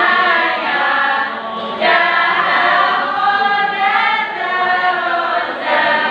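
A group of women singing together in unison, without instruments.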